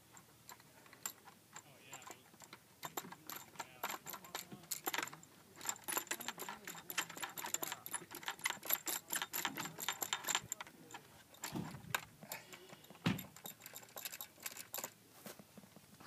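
Small metal hardware clicking and lightly rattling in quick irregular strings as bolts and knobs are fitted and screwed into the rocker box of an Orion XX14g Dobsonian telescope mount. Near the end come two dull knocks.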